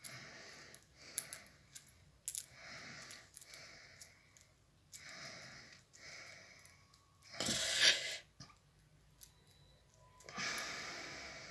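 Handling noises: scattered light clicks and short rustles, with a louder rustle a little past the middle.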